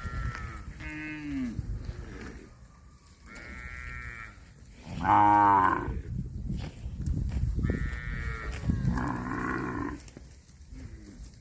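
Cattle mooing: a series of about five separate moos, the loudest about five seconds in.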